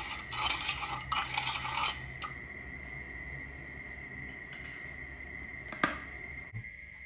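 A spoon stirring and scraping in a bowl, dissolving sugar in vinegar, busy for about the first two seconds and then quieter, with one sharp clink near six seconds. A faint steady high whine runs underneath.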